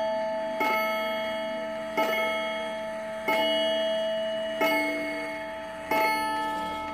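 A Gold Cup 31-day pendulum wall clock, Japanese made, striking the hour on its gong at twelve o'clock. There are five strokes, one about every 1.3 seconds, and each rings on and fades before the next.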